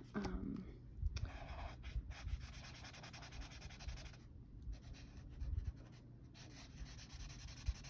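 A coloured pen scratching and rubbing on paper as a square of a chart is coloured in, with a few soft thumps.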